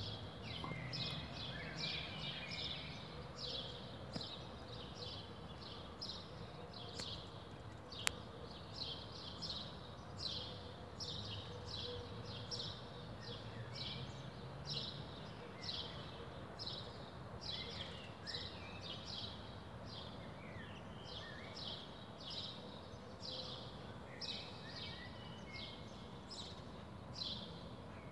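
Small birds chirping steadily, short high notes dropping in pitch, about two a second, over a faint low rumble, with a single sharp click about eight seconds in.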